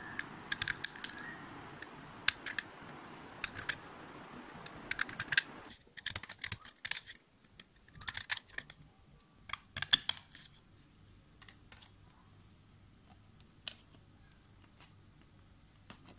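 Flat metal blade scraping the edge of a plastic basket in short strokes, giving clusters of quick rasping clicks about once or twice a second, thinning out after about ten seconds. A low steady background hum stops abruptly about six seconds in.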